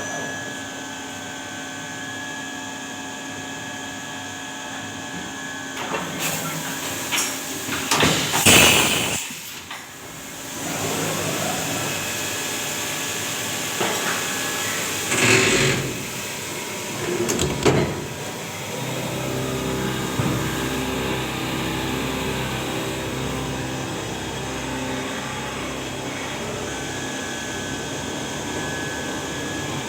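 A vertical machining centre running with a steady hum. About eight seconds in there is a loud hiss of air, and shorter hisses and knocks follow around fifteen and seventeen seconds, the kind of air blast a VMC spindle gives when a tool is released or clamped.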